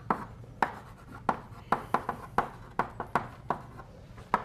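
Chalk writing on a blackboard: a run of sharp taps and short scratches, about three a second, as a word is written out.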